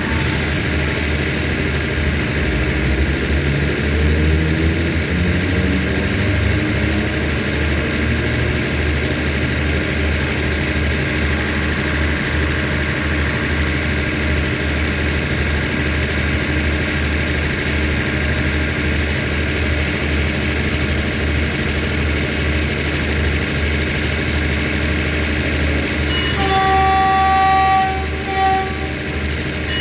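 Diesel train idling at the platform with a steady low engine drone, the engine note rising for a few seconds near the start. Near the end the train's horn sounds one long blast, then a short toot.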